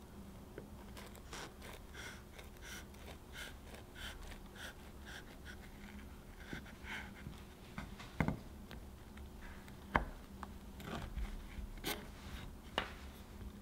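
Kitchen knife sawing through a baked, crisp-crusted chocolate biscuit sheet: a quick run of short scraping strokes, about three a second. In the second half come a few sharper knocks of the blade against the wooden cutting board.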